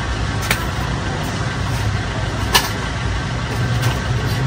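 Packaged fishing tackle being handled: two sharp clicks, about half a second and two and a half seconds in, the second the louder, over a steady low background rumble.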